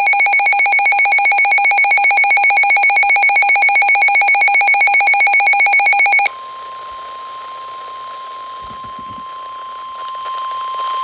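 A loud electronic alarm beep, pulsing rapidly, cuts off about six seconds in. It is followed by a steady single tone near 1 kHz: the NOAA Weather Radio 1050 Hz warning alert tone that signals a warning broadcast is about to begin.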